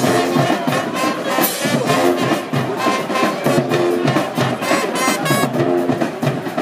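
High school marching band playing: brass (trumpets and trombones) sounding held chords over a steady drum beat.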